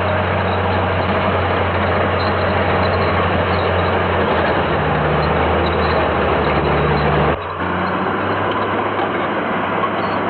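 Large crawler bulldozer's diesel engine running steadily with a low drone. The sound changes abruptly about seven seconds in.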